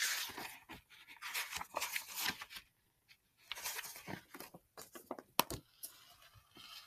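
A picture book being opened and its paper pages turned: irregular rustling and crinkling of paper with a few short sharp clicks, pausing briefly about three seconds in.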